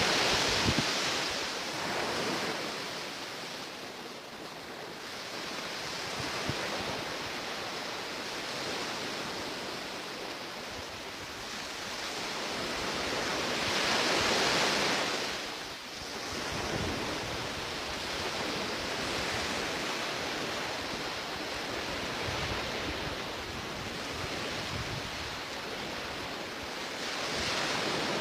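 Sea waves washing onto the shore, a steady surf that swells louder about halfway through and again near the end.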